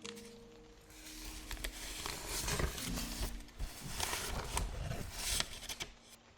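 Paper being handled in art journaling: a run of rustling, crinkling strokes with a few sharp ticks, over soft background music.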